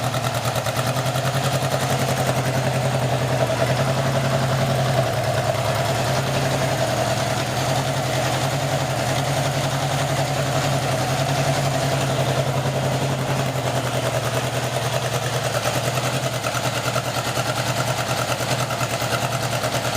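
Honda CB750 air-cooled inline-four engine idling steadily with the choke on, on its first start after a rebuild with an 836 big-bore kit.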